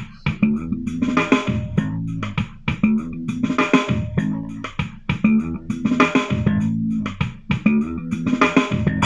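Music with bass guitar, guitar and a drum beat, played through the Awei Y371 portable Bluetooth speaker and picked up by a microphone.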